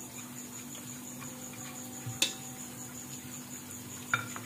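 Onions and spices frying softly in ghee in an aluminium pressure cooker, with a spoon and plate clinking against the pot: one sharp clink about two seconds in and a ringing knock near the end.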